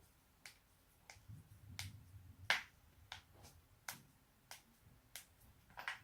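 A person's joints being cracked: about a dozen sharp pops at uneven intervals, the loudest about two and a half seconds in, with a low rumble of movement under the pops near the start.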